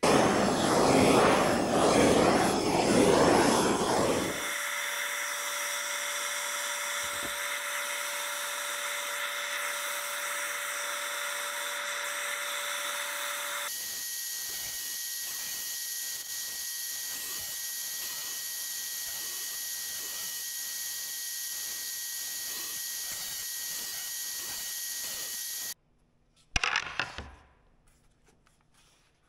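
A loud rushing noise, then steady machine running; from about halfway the drum sander runs as the resin-filled cutting boards are fed through it to sand the resin flush, and it cuts off suddenly near the end.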